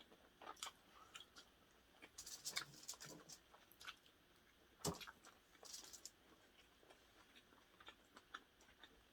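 Quiet eating sounds: soft chewing and wet mouth clicks, with one sharper knock about five seconds in.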